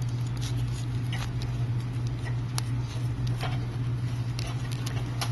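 Scattered small clicks and scrapes of hand tools working on a phone, over a steady low electrical hum.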